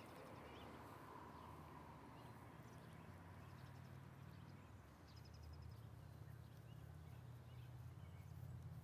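Near silence: a faint, steady low outdoor rumble, growing a little louder near the end.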